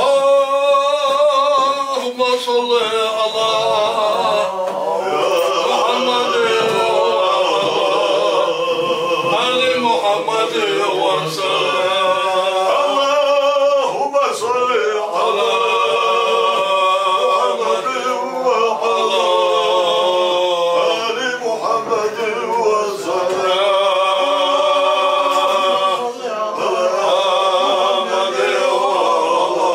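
Unaccompanied male singing, with long held, wavering notes that come in suddenly and carry on without a break.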